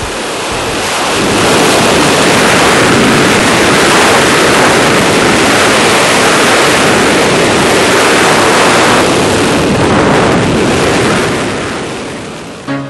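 Loud, steady rush of slipstream wind at the open door of a skydiving aircraft in flight, buffeting the microphone. It swells about a second in and eases off near the end.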